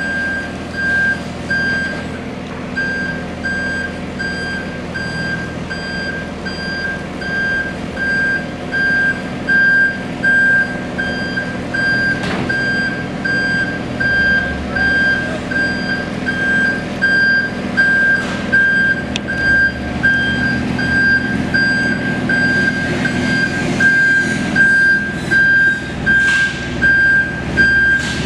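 Wacker Neuson 803 mini excavator's travel alarm beeping in a regular rhythm while the machine tracks, over its Yanmar three-cylinder diesel engine running steadily.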